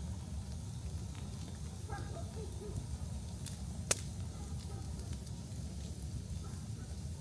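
Large wood fire burning with a steady low rumble and scattered crackles, with one loud, sharp pop about four seconds in.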